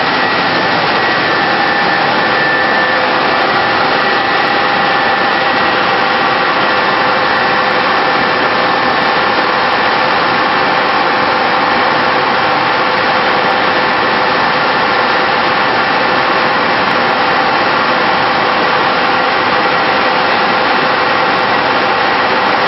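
Machinery of a seed-cleaning line running, including a gravity separator: a steady, loud drone of motors and fans with a few faint steady tones over it.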